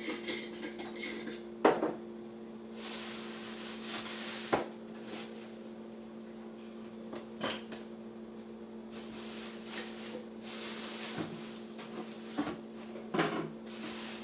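Glass jars and lids clinking and knocking against each other while being rummaged through in a box. There is a quick cluster of clinks in the first two seconds, then scattered single knocks and some rustling, over a steady low hum.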